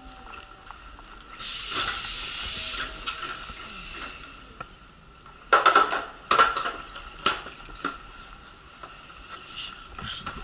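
A loud burst of hissing air lasting about a second and a half, then two loud metallic clanks about a second apart as a portable metal wheelchair boarding ramp is set down at the train's door, followed by lighter knocks of the ramp being adjusted. A faint steady high whine runs underneath.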